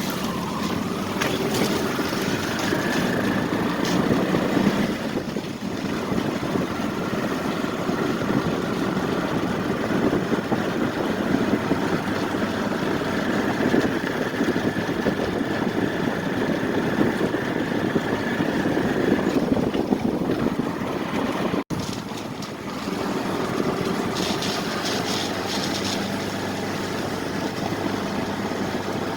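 An engine running steadily, with a brief break about three quarters of the way through.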